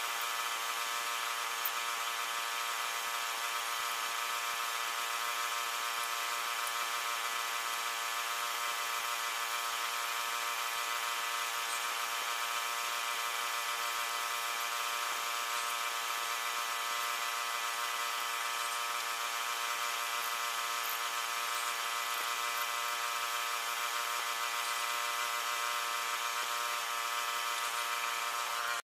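Air compressor running with a steady, unchanging drone, supplying air to a spray gun for spraying melamine gloss wood finish.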